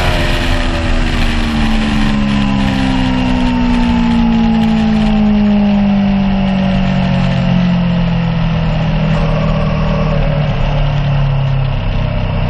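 Aprilia Tuono V4 1100 Factory's V4 engine heard from onboard, its revs falling slowly and steadily as the bike rolls off the throttle.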